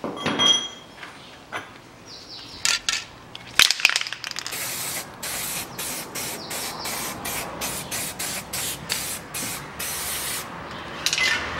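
Aerosol spray can hissing in a quick series of short bursts as the wheel hub and studs are sprayed, after a few clicks and knocks in the first seconds.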